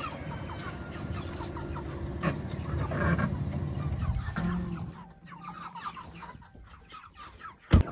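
Chickens clucking, many short calls, over a low steady hum that fades out about five seconds in. A single sharp thump near the end.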